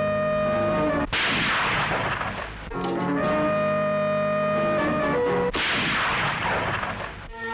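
Two rifle shots about four seconds apart, each a sudden crack with a tail that dies away over a second or so, between stretches of film music of held notes.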